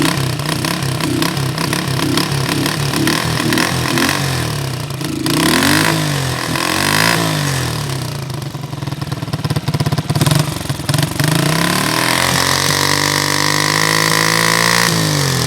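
1999 Honda CG motorcycle's carbureted single-cylinder four-stroke engine revved with the throttle. It starts with a run of quick blips, then rises and falls in longer sweeps, and is held at high revs near the end before dropping back.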